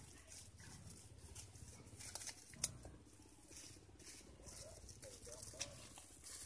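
Faint rustling and scattered light clicks from plastic fruit bags and leaves on a star apple tree being handled, with one sharper click about two and a half seconds in.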